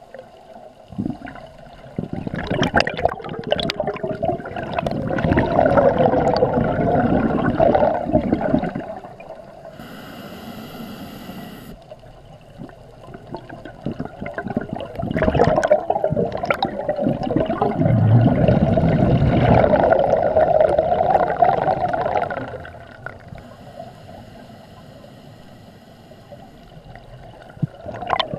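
Scuba diver breathing through a regulator, heard underwater: two long exhalations of bubbles gurgling out for several seconds each, with quieter stretches of inhalation between them.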